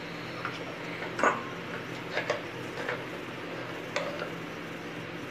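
A few scattered light clicks and knocks of a spoon against a stainless steel mixer jar as thick blended banana-cocoa mix is scraped and tipped out into a glass bowl, the loudest about a second in, over a steady low hum.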